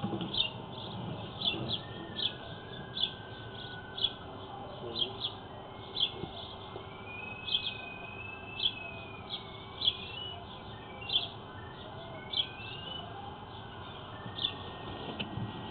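Electronic pipe locator tracking a sewer camera's sonde: a thin electronic tone that slides and steps up and down in pitch as the signal strength changes, over a run of short, high, regular chirps.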